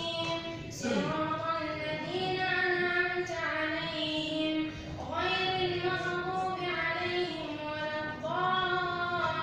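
A boy's voice reciting the Qur'an in a melodic, chanted style while leading prayer, holding long drawn-out notes. New phrases begin about a second in, about halfway, and near the end.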